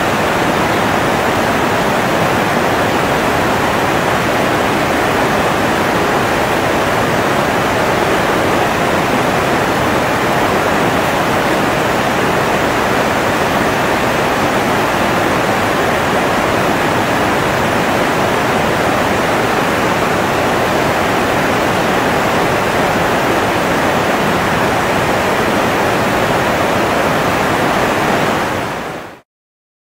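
Steady rushing of a mountain river, an even, loud wash of water noise that fades out quickly near the end.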